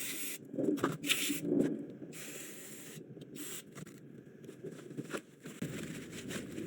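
Aerosol brake parts cleaner sprayed in several short hissing bursts onto a brake caliper bracket, followed by quieter rubbing and scraping.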